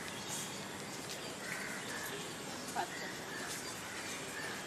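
Faint outdoor ambience with birds chirping in the distance over a steady background hiss.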